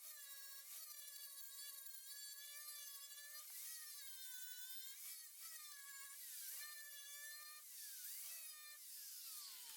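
Small high-speed power tool whining, its pitch sagging briefly again and again as it is pressed into the work, then winding down with a falling whine near the end.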